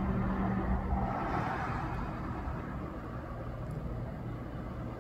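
Traffic noise: a road vehicle passing, swelling about a second in and then fading, over a steady low hum.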